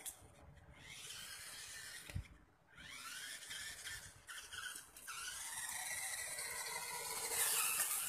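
Small electric motor of a remote-control rock crawler toy whining, its pitch rising and falling as it drives and steers. Near the end a louder rustling hiss as the crawler drives into dry leaves.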